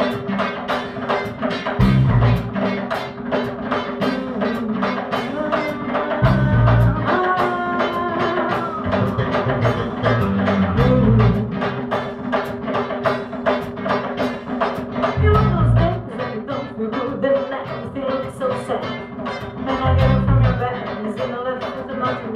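Live band music: a steady, quick beat on drums and percussion with heavy bass notes and a melody line over it.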